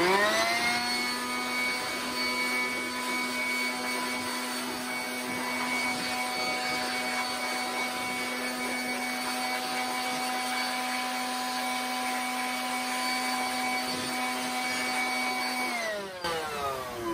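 Corded handheld electric blower switched on and spinning up to a steady high whine over a rush of air, blowing dust out of an opened electric lawn mower's motor. Near the end it is switched off and its whine falls as it winds down.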